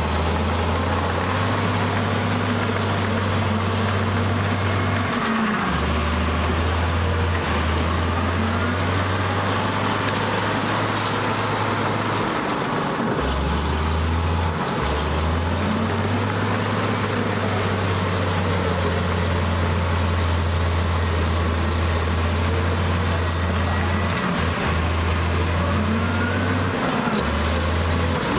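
Crawler bulldozer's diesel engine working under load with a deep, steady drone, its revs rising and falling now and then.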